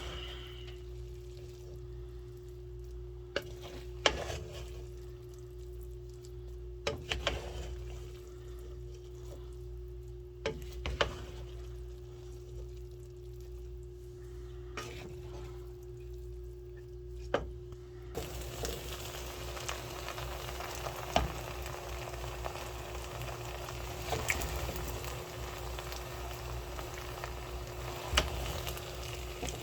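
Rice and vegetables being stirred in a pan with a spatula: scattered knocks against the pan. A bit over halfway through, a steady sizzle of stir-frying sets in. Under it all runs a constant low hum and a steady tone.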